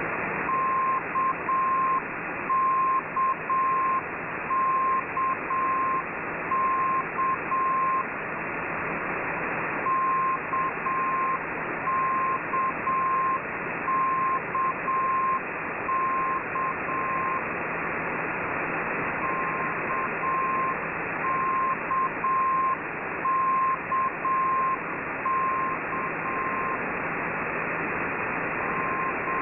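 Russian military single-letter propagation beacon heard over shortwave, keying the letter K in Morse code (dah-dit-dah) again and again as a steady beep through receiver static. The groups come about every two seconds, with a couple of short pauses where only the static is left.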